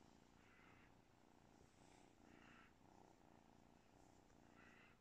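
Grey kitten purring faintly while being stroked, the purr swelling and easing about every two seconds with its breathing.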